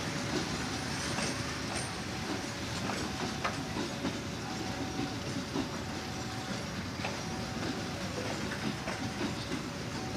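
A train running through a level crossing, with a steady rumble and scattered faint clicks, while the crossing's warning signal sounds a repeating two-note tone.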